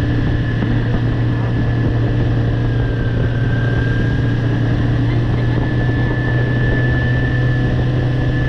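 Motorcycle engine running steadily under way, an even drone that does not rev up or down, with a thin steady whine above it.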